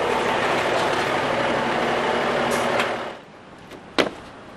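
Semi truck's diesel engine running loud and steady, cutting off abruptly about three seconds in. Then a single sharp click of the cab door latch near the end.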